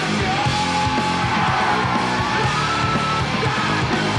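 Loud rock music with guitar, and a voice yelling over the band in long held notes that slide in pitch.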